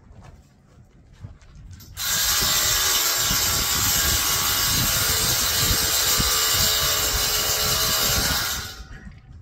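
Power tool running steadily for about six seconds, starting about two seconds in and stopping shortly before the end, as a metal stair railing is fastened into concrete.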